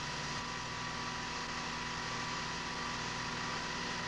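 A steady hum and hiss with a few faint steady tones, unchanged throughout.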